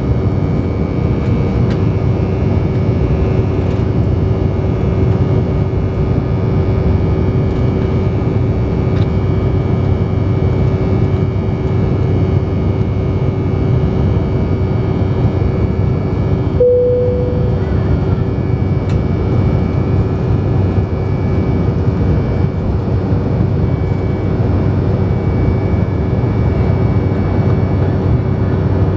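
Steady cabin drone of an Embraer 190 in flight, its GE CF34 turbofan engines and the rushing airflow heard from a window seat over the wing, with a steady hum running through it. A short beep sounds about two thirds of the way through.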